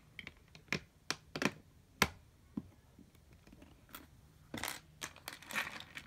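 Plastic Lego bricks clicking and clattering as they are handled and pressed onto the baseplate: a dozen or so irregular sharp clicks, the loudest about two seconds in.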